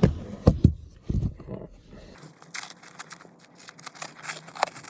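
Handling noise: a few sharp knocks in the first two seconds, then lighter rustling and crinkling with scattered small clicks.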